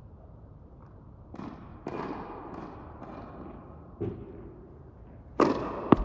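Tennis balls being hit and bouncing, sharp pops that echo in an indoor court: about five hits, the loudest two close together near the end.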